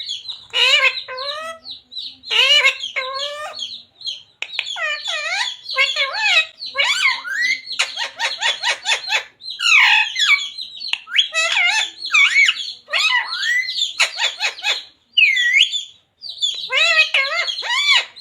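Pet parrot chattering and squawking in a quick string of short, high-pitched calls and word-like mimicked sounds. About eight seconds in there is a fast rattling burst.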